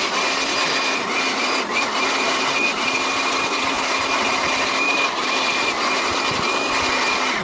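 Handheld electric air blower running steadily, its motor whining at a fixed pitch over the rush of air, blowing dust out of a car's pleated paper air filter.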